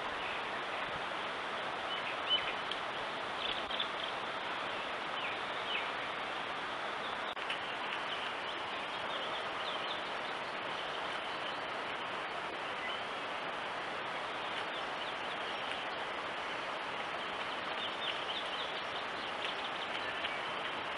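Steady hiss of outdoor ambience through a trail camera's microphone, with short high bird chirps now and then and one faint knock about two seconds in.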